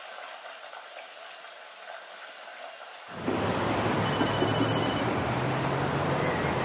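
Faint room tone, then from about three seconds in a louder street background with a low hum; about a second later a mobile phone rings once, a pulsing electronic ringtone lasting about a second.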